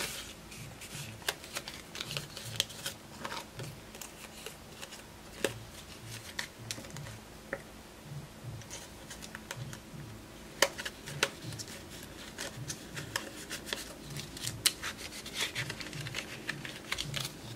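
Paper dollar bills rustling and crinkling as they are counted, folded and slid into a paper envelope, with many short sharp clicks and taps scattered throughout.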